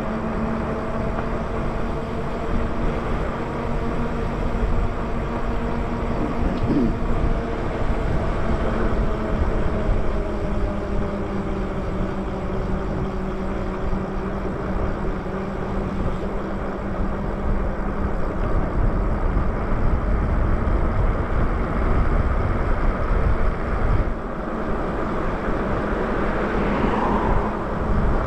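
Electric bike on the move: wind buffeting the microphone and tyres running on asphalt, with a steady electric whine from the hub motor running under it.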